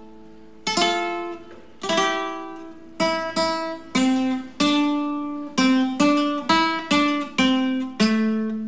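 Nylon-string classical guitar played solo: plucked notes and chords ringing and fading one after another. They come sparsely at first, then at about two a second.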